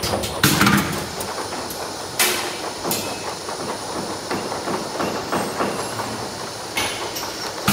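Bottle-filling line running: plastic bottles clattering along a stainless-steel conveyor over a steady mechanical rattle, with several sharper knocks.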